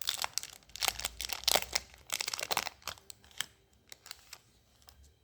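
A foil trading-card booster pack being torn open across the top and its wrapper crinkled, a dense run of crackling rips for about three seconds, then a few scattered crinkles as it quietens.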